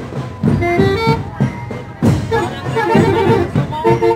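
Music with a beat and a melody of held notes, with some voices in the crowd.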